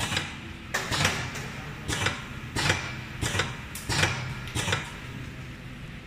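Pneumatic cylinders on a vial gel filling and crimping machine actuating in manual mode: about eight sharp, irregularly spaced clacks.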